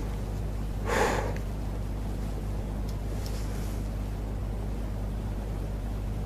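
A steady low hum runs throughout. About a second in comes one short, breath-like puff of noise, and a couple of faint ticks follow a little later.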